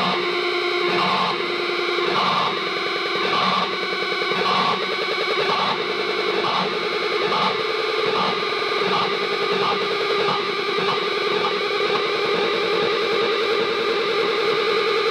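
Electric guitar played through distortion and delay effects pedals: a repeating pattern of distorted notes with echoes. Its tone shifts while a pedal knob is turned, and it settles into a sustained, wavering tone in the last few seconds.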